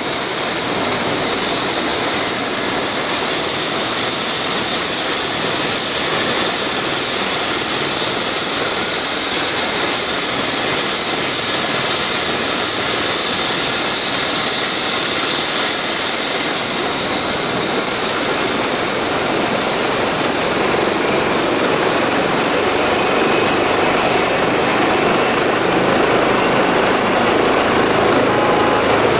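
Airbus EC135 helicopter running on the ground with its main rotor turning: steady rotor noise under a high turbine whine from its twin turboshaft engines, during start-up before lift-off.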